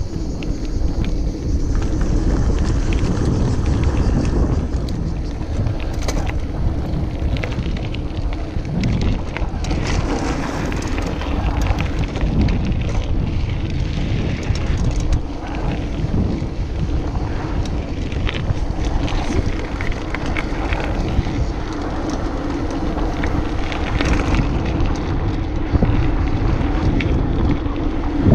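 Mountain bike rolling fast downhill on rough tarmac and gravel: a steady rumble of the tyres on the road surface, with wind buffeting the microphone.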